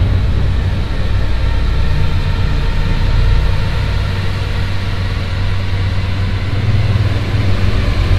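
A low, steady rumbling drone from a horror soundtrack, with faint sustained high tones above it.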